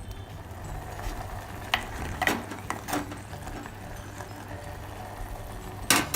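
Greens simmering uncovered in a clay pot to boil off their water: a steady low hum with four sharp pops, the loudest near the end.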